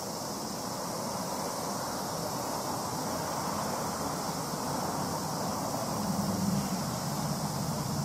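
Road traffic going by: a steady noise of passing vehicles, with an engine's low hum growing louder about six seconds in.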